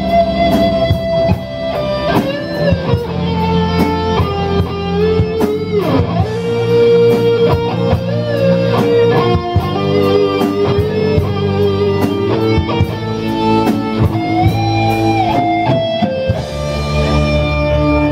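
Live rock band playing an instrumental passage: an electric guitar carries the lead melody with bent, gliding notes over bass guitar and a steady drum beat.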